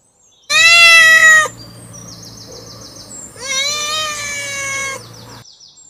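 A domestic cat meows twice. The first meow is loud, about a second long and cut off short. The second comes about three and a half seconds in and is longer and softer.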